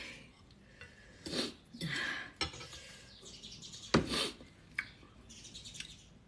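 Metal spoon clinking and scraping against a stainless steel bowl while scooping papaya salad, in a string of short knocks, the loudest about four seconds in.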